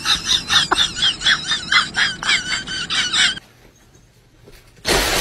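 An animal squealing: a fast run of high-pitched squeals, about four a second, that stops about three and a half seconds in. Near the end comes a short, loud burst of noise.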